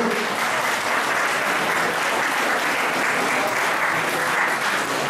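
Audience applauding: steady, dense clapping from a roomful of guests.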